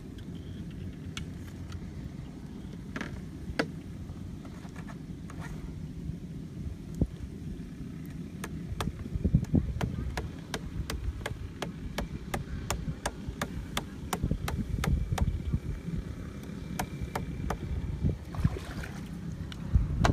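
A hatchet knocking a bamboo stake into mud, a long run of quick sharp knocks at about two to three a second, with scattered single knocks before it. A steady low rumble of wind on the microphone runs underneath.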